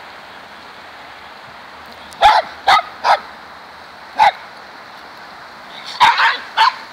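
Small dogs barking in short, sharp yaps while playing: three quick barks about two seconds in, a single one a second later, then a quick cluster near the end.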